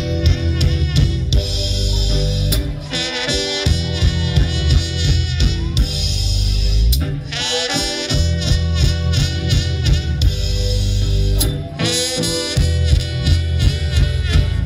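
A rock band playing live through a PA in an instrumental passage: a lead melody over bass and drum kit, with no singing.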